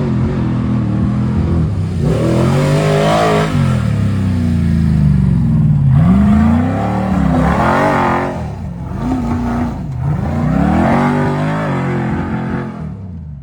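An off-road 4x4's engine revving hard, its pitch climbing and dropping again several times as the throttle is worked.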